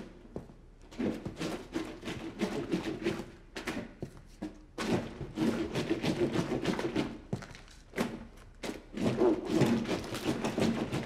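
Laundry being hand-washed in a tub: rapid, rhythmic scrubbing and rubbing of wet cloth in three bouts, with short pauses between them.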